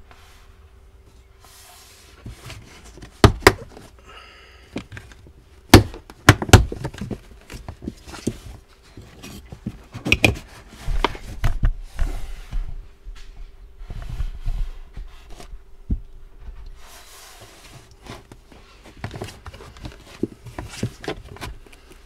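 Tesla Model Y plastic interior trim panels being pried and pulled off, with a series of sharp clicks and knocks as retaining clips pop free, amid rustling and handling of the panels.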